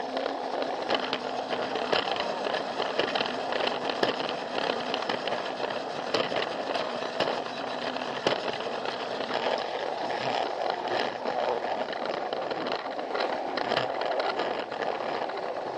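Battery-powered Plarail toy train running on plastic track: a steady motor whir with irregular clicks and rattles as the wheels cross the track joints.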